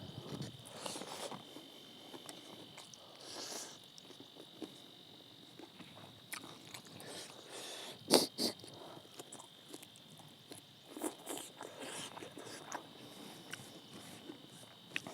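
Close-up eating sounds: chewing and biting with scattered wet smacks and small crunchy clicks, the sharpest about eight seconds in. A steady high-pitched tone runs underneath.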